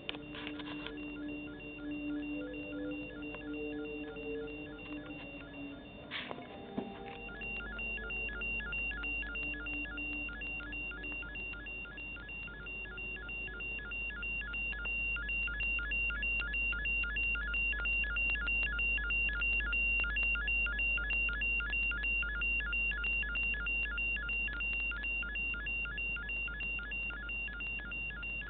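Electronic sci-fi beeping and tones: a few changing low electronic tones and a sharp click about six seconds in. Then a low hum joins a steady high tone and a rapid, regular train of beeps, growing louder toward the middle.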